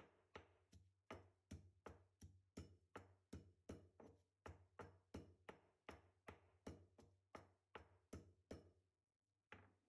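Stone pestle pounding green chillies in a stone mortar: faint, even thuds about three a second, pausing near the end with one last stroke.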